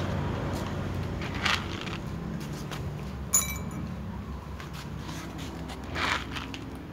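A single sharp metallic clink with a brief ring about a third of the way in, over a steady low rumble. There are short hissy scrapes just before and near the end.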